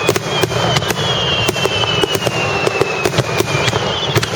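Fireworks crackling: many rapid, irregular sharp pops close together, over a faint high tone that slides slowly down in pitch.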